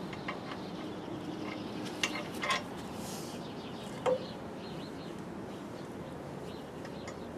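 A few light metallic clinks and clicks, the sharpest about four seconds in, over a steady low background hum.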